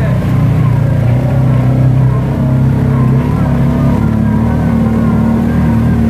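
Side-by-side UTV engine running steadily under load as the machine drives through a shallow creek.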